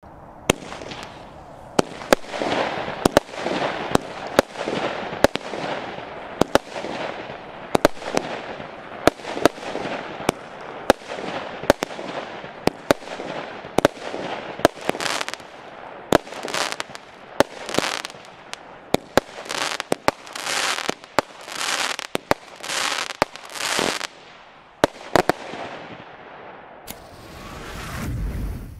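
A 25-shot, 20 mm consumer firework cake (battery) firing in steady succession, about one shot a second. Each shot is a sharp crack followed by a brief crackling, hissing burst of stars.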